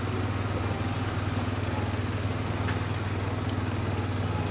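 All-terrain vehicle engine running steadily at low speed as it tows a trailer, an even, unchanging drone.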